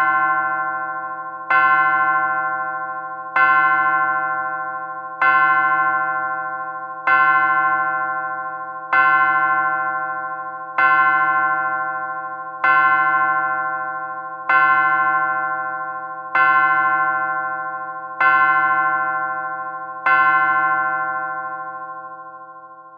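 A clock's bell striking the hour: the same ringing tone struck about every two seconds, eleven strokes, each ringing on into the next, the last dying away near the end.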